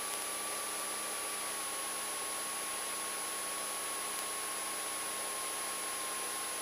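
Steady hiss of the aircraft's intercom and radio audio line, with a thin steady tone riding on it that sags very slightly in pitch.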